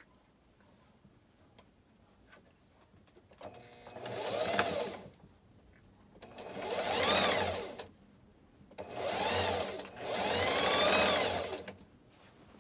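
Singer electric sewing machine running in four short spurts, starting about three seconds in. Each spurt's motor whine speeds up and then slows as the pedal is pressed and eased, while it top-stitches a folded-over fabric channel.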